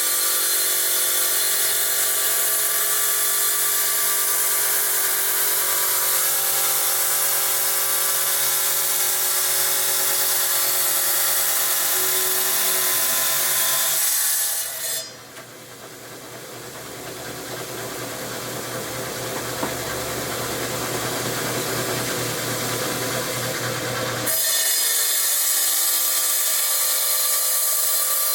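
Felker Tile Master wet tile saw's diamond blade running and cutting through rock, a steady whine with hiss. About fifteen seconds in, the sound changes suddenly and drops, growing louder again over several seconds, then jumps back to the full whine near the end.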